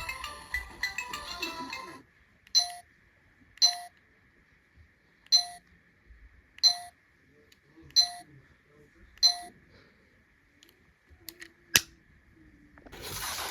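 Electronic beeps from a VTech Peppa Pig Learning Watch, six short identical beeps at uneven spacing. A sharp click comes near the end.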